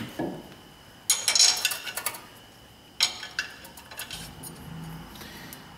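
Metal clinking and clattering as a new brake rotor is handled on the wheel hub and a nut is threaded onto a wheel stud to hold it. There are two louder bursts of clatter, about a second in and about three seconds in, with lighter ticks after each.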